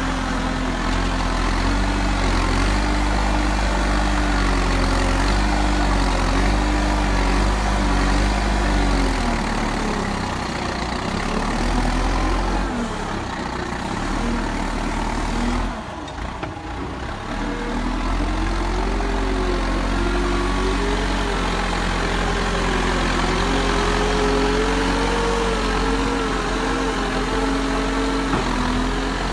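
A JCB backhoe loader's diesel engine running under working load, its pitch rising and falling as the hydraulics are worked. The engine briefly drops about halfway through, then picks up again.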